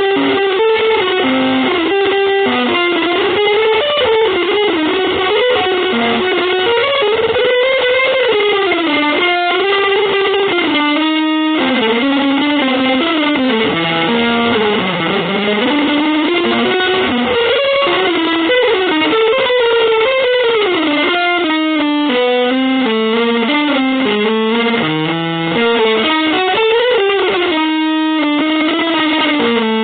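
Electric guitar playing avant-garde, free-jazz style music: a continuous line of notes wandering up and down in pitch, with brief breaks about 11 and 28 seconds in.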